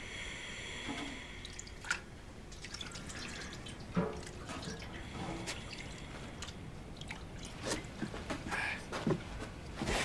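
Quiet kitchen sounds: water dripping, with scattered small clicks and knocks of dishes and utensils, the sharpest about two and four seconds in.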